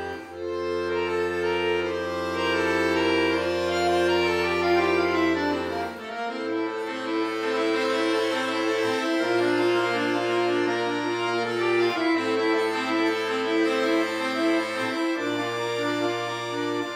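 Solo chromatic button accordion playing a slow piece: a low bass note is held under the melody for about six seconds, then drops out and comes back as repeated held bass notes under a moving tune.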